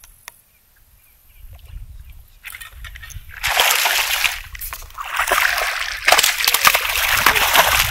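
A hooked bass thrashing and jumping at the water's surface beside a kayak. Loud splashing comes in two bouts, starting about three and a half seconds in, and the second bout runs longer.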